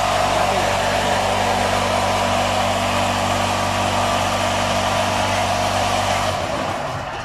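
Electric drive of a concrete pan mixer with lift hopper running: a steady mains-motor hum with a mechanical whirr over it, winding down about six seconds in.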